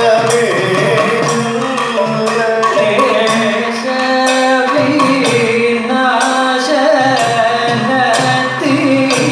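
Kathakali vocal music: male voices singing a padam in a Carnatic style, kept in time by regular strikes of the chengila gong and ilathalam cymbals about twice a second, with drum accompaniment.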